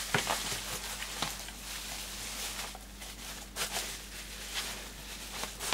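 Bubble wrap and plastic sheeting being handled and pulled off a wrapped object: irregular rustling and crinkling with small crackles.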